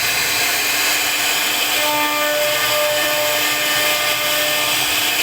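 CNC router spindle running steadily as it cuts into a wooden board: a constant hiss with a machine whine whose pitched tones come and go.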